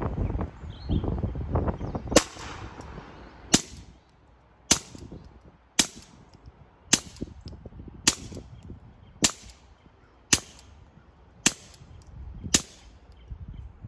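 Ruger Mark IV 22/45 Lite .22LR pistol firing through a SilencerCo Sparrow rimfire suppressor: ten suppressed shots at a steady pace of about one a second, each a short sharp report.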